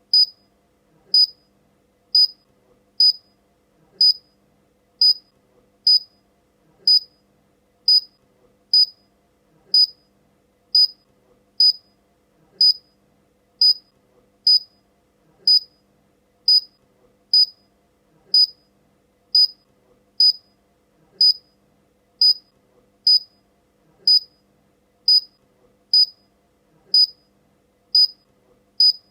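Short, high-pitched electronic beeps repeating about once a second.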